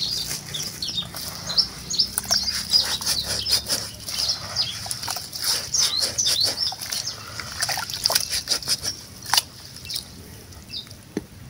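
Dry sesame seeds rustling and clicking as hands scoop and rub them in a plastic basin, with birds chirping in the background.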